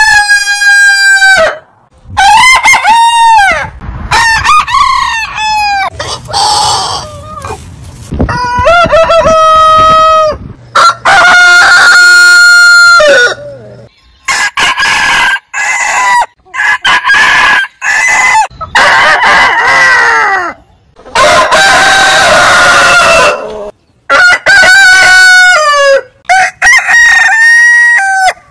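Roosters crowing one after another, about a dozen loud long crows from different birds with abrupt cuts between them, some of the crows hoarse and rough.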